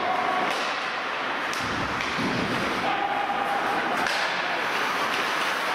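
Ice hockey play: a steady scraping hiss of skates on the ice, broken by a few sharp knocks of sticks and puck, about half a second, a second and a half and four seconds in.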